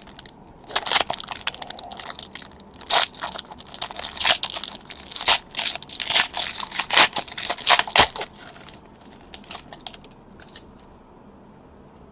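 A baseball-card pack wrapper being torn open and crinkled in the hands: a run of sharp crackling and tearing strokes, dying down to a few faint rustles near the end.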